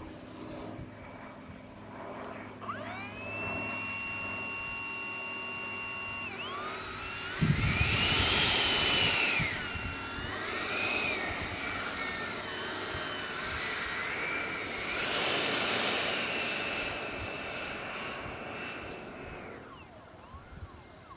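Freewing T-45's 90mm electric ducted fan whining as it spools up about three seconds in, then surging louder about seven seconds in, its pitch rising and falling with throttle changes as the model jet taxis. The whine winds down near the end.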